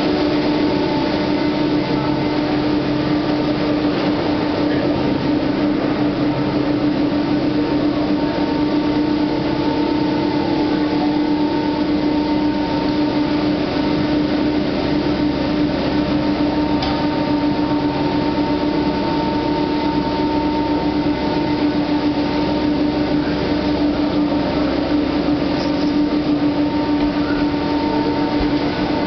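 Gondola lift station machinery running: the drive and sheaves moving the cable and cabins through the station give a steady low hum with a fainter higher whine over a constant mechanical rumble.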